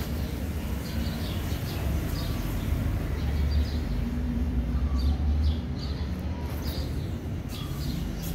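Birds chirping in short, scattered calls over a steady low rumble that grows louder for a few seconds in the middle.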